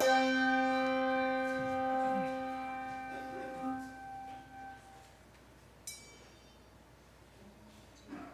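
A piano note struck once and held, ringing out and fading away over about five seconds. A single sharp click follows a second or so later.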